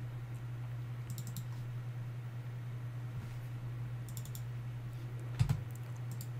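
A few short clusters of clicks from a computer keyboard and mouse, about a second in, around four seconds in and near the end, over a steady low hum.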